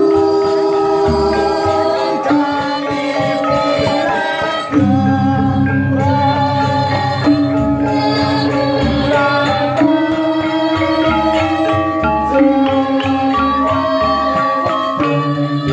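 Balinese gamelan gong ensemble playing: bronze metallophones and a row of kettle gongs struck with mallets in fast, dense patterns over ringing sustained tones. The low tones shift to a new pitch about five seconds in.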